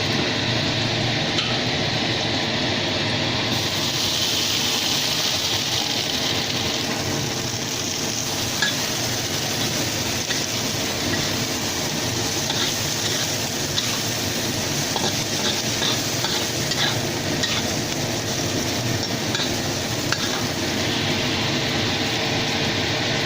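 Green beans and other vegetables stir-frying in a hot pan: a steady sizzle with a spatula stirring, scraping and tapping against the pan. The sizzle turns louder and hissier about three and a half seconds in for a few seconds, and small taps of the spatula come now and then later on.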